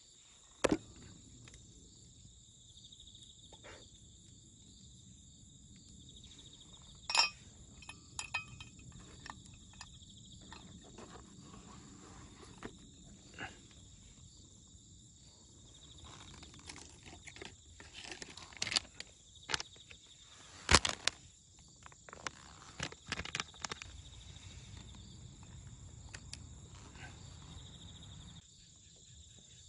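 Insects trilling steadily, with scattered sharp clicks and knocks from an enamel mug and a folding metal coffee dripper stand being set down and handled on a wooden board.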